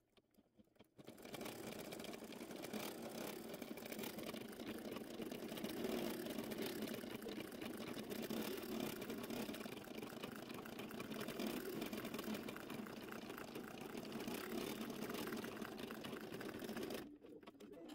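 Embroidery machine stitching, its needle running in a fast, steady clatter that starts about a second in and stops near the end. The machine is sewing the yellow satin-stitch horn of a unicorn design, and the footage is sped up.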